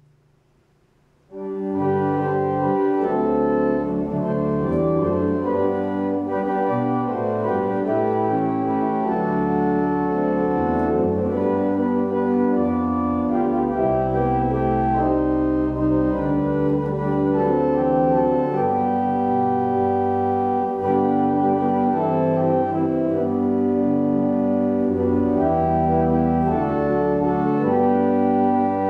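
Church organ playing a prelude: held chords over long low bass notes, starting abruptly about a second and a half in.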